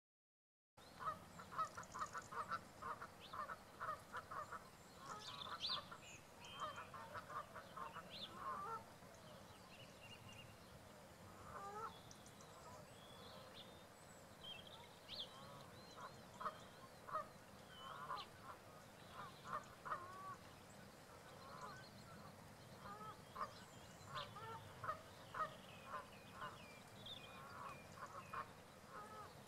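Waterbirds calling: many short, goose-like calls in dense runs during the first nine seconds and again from about sixteen seconds on, with fainter high chirps from other birds above them. The sound starts abruptly about a second in.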